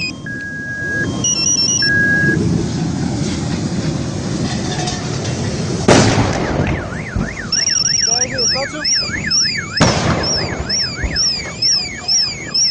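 A burning vehicle wreck explodes twice into fireballs: a sudden loud blast about six seconds in, the loudest sound here, and a second about four seconds later. Several car alarms wail and beep throughout.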